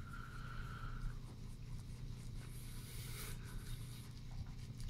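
Wet shaving brush being swirled over a puck of Arko shaving soap to load it, a faint soft scratching, over a steady low hum.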